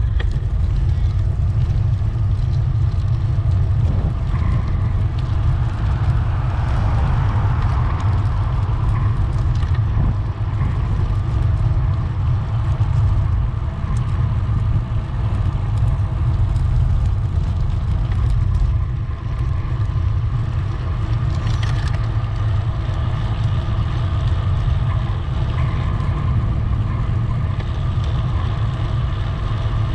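Steady low rumble of wind buffeting the microphone of a handlebar-mounted action camera on a moving bicycle.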